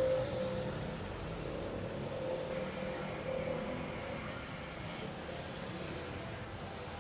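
Jet engines of an Airbus A320-family airliner at takeoff power during its takeoff roll: a steady rush with a held droning tone, loudest at the start and easing slightly as it goes.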